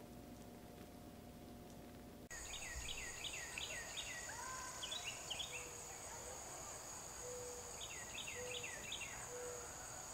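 Faint room tone with a steady hum, then about two seconds in, outdoor late-summer ambience. A steady high insect drone runs throughout. A bird gives several runs of quick falling chirps, and there are short low whistled notes.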